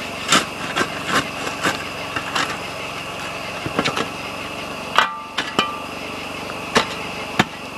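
Metal shovel scraping and knocking against rocks and hot coals as coals are shoveled out of a wood fire under a grill grate, a string of short scrapes and knocks. About five seconds in comes a sharper metal clang that rings briefly.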